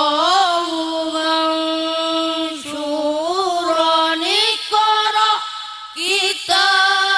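One voice reciting the Quran in a slow, melodic style, holding long notes with ornamented turns between them and breaking off briefly for breath two or three times.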